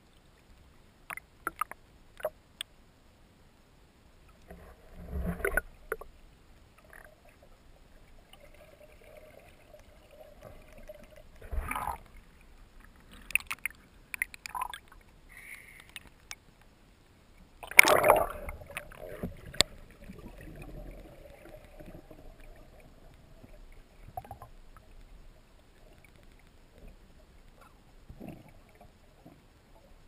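Water splashing and bubbling around a freediver's camera as it moves at and under the surface: irregular splashes and bubbly bursts, the loudest a little past the middle, with a faint steady hum between them.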